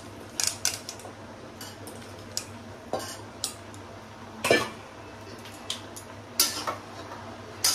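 Spatula knocking and scraping against a kadai (wok) full of vegetables as they are added and stirred: irregular clinks and scrapes, the loudest about halfway through and near the end.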